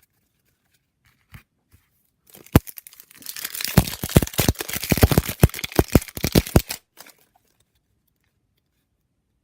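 A foil trading card pack wrapper being torn open and crinkled. A sharp snap comes about two and a half seconds in, then about four seconds of crackling tearing that stops suddenly.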